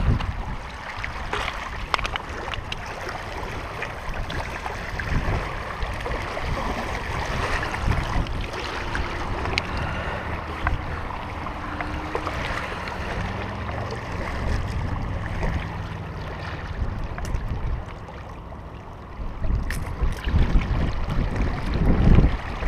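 Wind buffeting the microphone over water lapping on a rocky shore, with scattered small clicks and knocks from handling the fish and gear; louder low rumbling gusts near the end.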